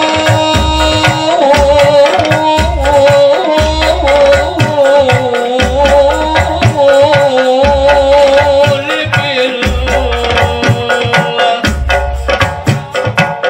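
A rebana frame-drum ensemble playing: deep open drum strokes and sharp slaps in a repeating pattern, with a jingle tambourine, under a male voice singing a wavering, ornamented melody through a PA. The singing fades back near the end while the drumming carries on.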